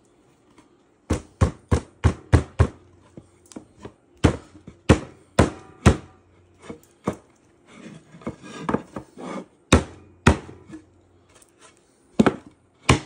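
Wooden beehive super boards being knocked together by hand to seat their finger joints: sharp wooden knocks, a quick run of about six about a second in, then more in pairs and small groups, with a stretch of softer rubbing of wood in between.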